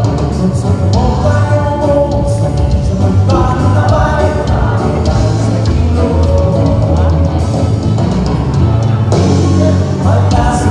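Live band playing a rock-style song through a PA system, a voice singing in phrases over a steady bass line and cymbal hits.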